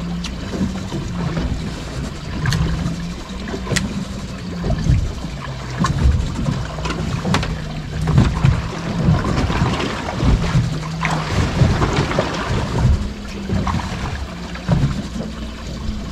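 Wind on the microphone and water slapping against the hull of a fishing boat on open sea, with scattered sharp clicks and knocks.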